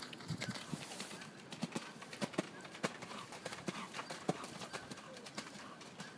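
Hoofbeats of a skewbald cob cantering on a wet arena surface: a quick, uneven run of hoof strikes, several a second.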